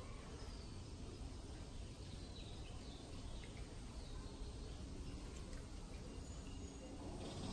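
Faint outdoor ambience: a steady low rumble with a few faint, scattered bird chirps.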